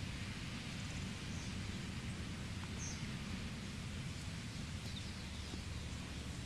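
Outdoor background noise: a steady hiss with an unsteady low rumble, and a few faint, short, high bird chirps about a second and a half, three and five seconds in.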